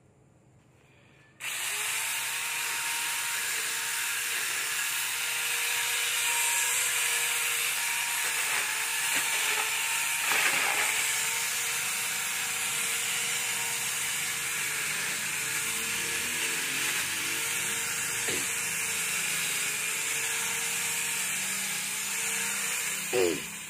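Small corded electric chainsaw switching on about a second and a half in and running with a steady whine. The pitch dips briefly several times as the chain cuts into a pile of leafy green branches. It shuts off and winds down near the end.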